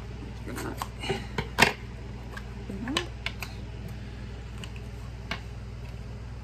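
A small jewellery box and its bag being handled and opened by hand: rustling with scattered sharp clicks and taps, the loudest about a second and a half in, over a steady low hum.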